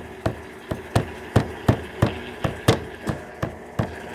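12 kg washing machine in its intermediate spin cycle, with a steady motor hum and a regular knocking about three times a second as the drum turns.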